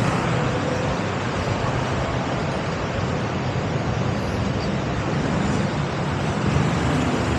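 Steady road traffic noise from a busy city road, with vehicles running past and no single event standing out.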